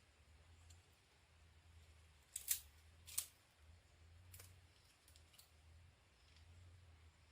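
Near silence with a few short, sharp clicks, the two loudest about two and a half and three seconds in.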